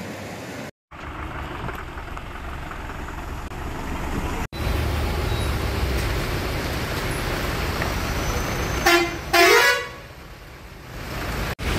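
Road traffic on a wet, puddled street, with a steady rumble of passing vehicles. A vehicle horn toots twice in quick succession about nine seconds in, the second blast slightly longer. The sound cuts out briefly three times.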